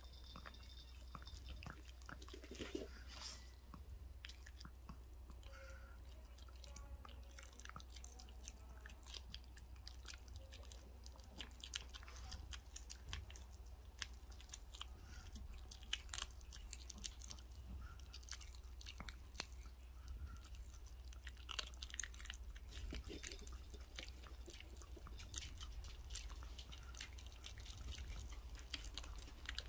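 Puppy chewing and biting on a piece of raw chicken held in a hand, with many irregular small clicks and crunches throughout.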